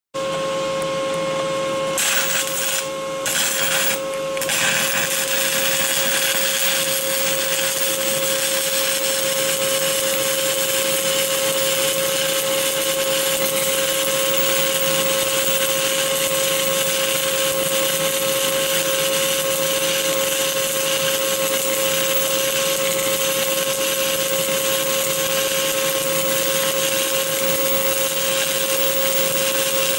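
Stick-welding arc on a 2.5 mm 7018 low-hydrogen electrode (ESAB OK 48.00) running an open root pass, burning with a steady hiss over a constant hum. The arc strikes about two seconds in, cuts out briefly twice, then burns steadily.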